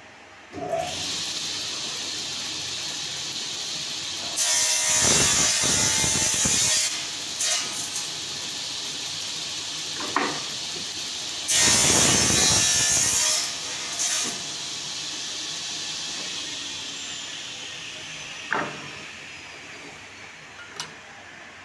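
Sliding table saw's circular blade starting up and running, then cutting through a wooden plank twice, each cut a loud burst of about two seconds. A few knocks of wood in between, and near the end the blade winds down with a falling whine.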